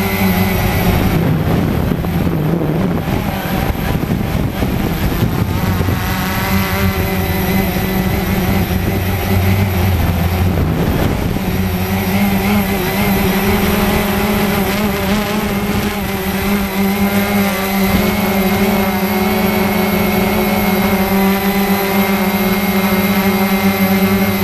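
Cheerson CX-20 quadcopter's four electric motors and propellers whirring in flight, heard from a camera mounted on the drone: a steady hum with several tones that shift in pitch as the motors speed up and slow down. From about a second in until about eleven seconds a rough rushing noise lies over it.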